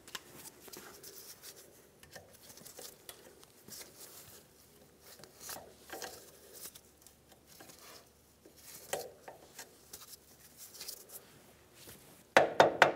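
Small metal clicks and scrapes of a new cotter pin being pushed through the tie rod's castle nut and its legs bent over to lock it, with a louder clatter of sharp metal clicks near the end.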